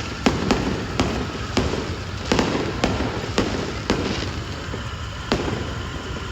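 Fireworks going off: a rapid, irregular run of sharp bangs and crackles, several a second, over a continuous low rumble of more distant bursts.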